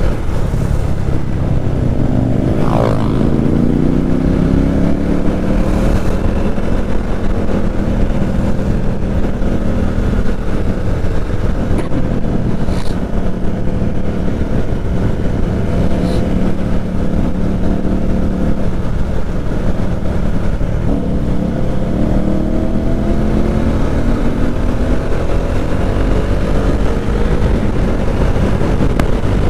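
Motorcycle engine and exhaust heard while riding: the pitch rises as it accelerates a few seconds in, holds at a steady cruise, then rises and falls again with the throttle later on.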